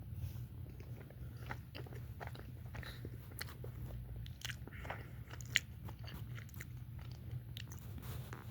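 A person chewing crunchy food close to the microphone: scattered small crunches, with one sharper crunch about five and a half seconds in, over a faint steady hum.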